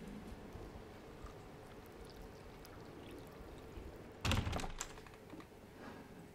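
Water being poured from an electric kettle into a mug, faint, with a short cluster of clinks and knocks a little over four seconds in.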